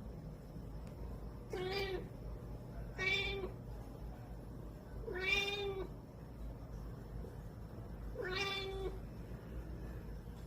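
Domestic cat meowing four times in short, whiny calls spaced a couple of seconds apart: the fussy whining of a sleepy cat.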